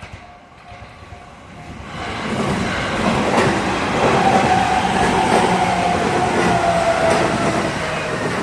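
Train passing close by at a level crossing: its rumble swells about two seconds in and is loudest through the middle, with wheel clatter and a high steady wheel tone, then starts to fade near the end.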